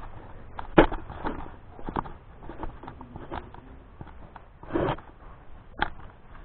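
Footsteps crunching and scuffing over debris on a floor: irregular knocks, the sharpest about a second in, with a longer scrape near five seconds.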